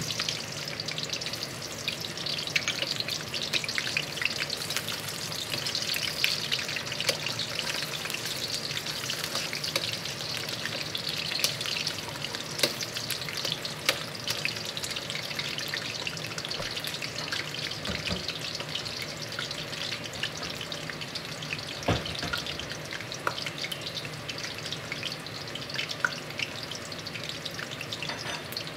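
Red onion slices frying in hot oil in a wok, with a steady sizzle full of small crackles and pops, and a few sharp taps of metal tongs against the pan.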